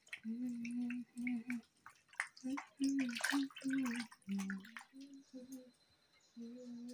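Raw chicken pieces being washed by hand in a steel bowl of water: sloshing, splashing and small drips, busiest about three seconds in. A low tune of short, held notes is hummed along with it.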